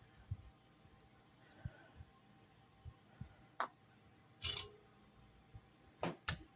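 Faint, scattered taps and clicks from soldering iron and solder work on a stained glass piece during beading. The loudest are a short noisy burst about four and a half seconds in and two close clicks near the end.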